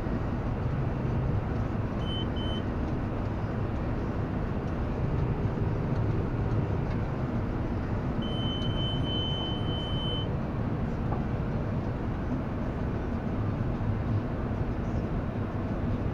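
Tractor engine running steadily under load, heard inside the cab while it pulls a John Deere hay baler along a windrow. Two short high electronic beeps sound about two seconds in, and one longer beep of about two seconds comes about halfway through.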